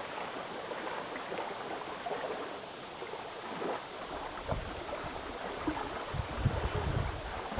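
Water lapping and flowing outdoors. From about halfway in, a low gusty rumble of wind buffets the microphone.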